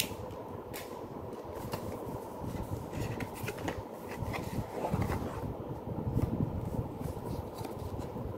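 Cardboard box and paper packaging being handled: scattered light rustles and taps, busiest around the middle, over a steady low hum.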